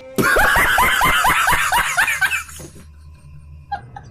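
A burst of rapid laughter, about four quick 'ha' syllables a second, each falling in pitch, dying away about two and a half seconds in. A few short high chirps follow near the end.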